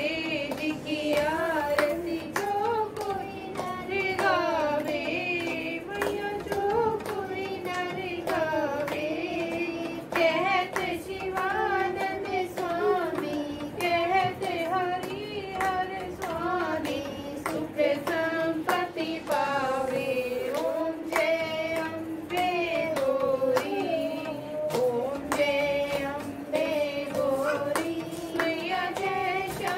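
Women singing a Hindu devotional hymn to Durga in unison, with steady rhythmic hand clapping keeping time.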